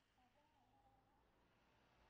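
Near silence: faint outdoor background, with a faint distant voice in the first half.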